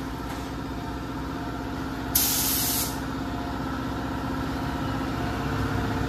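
Gravity-feed paint spray gun giving one short burst of hiss, under a second long, about two seconds in, over a steady machine hum.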